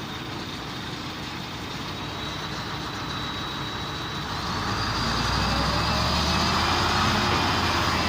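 Heavy diesel engine running, getting louder about halfway through as it revs up. A steady high whine steps up in pitch at the same moment.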